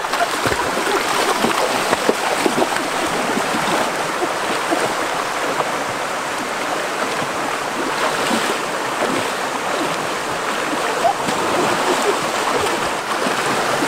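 Shallow rocky stream rushing steadily, with splashing as people wade and lunge through the water.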